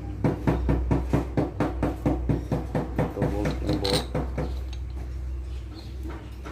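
Rapid, even clicking, about five a second, as a starter motor's end cap is worked by hand onto its housing; it fades out after about four seconds. A low steady hum runs underneath.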